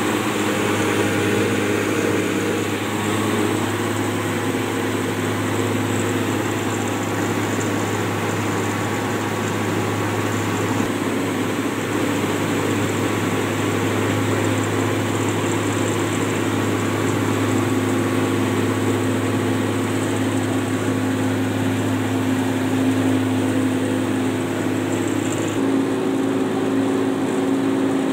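Small rice huller running steadily, milling paddy into rice, with a continuous low hum and a slight change in tone near the end.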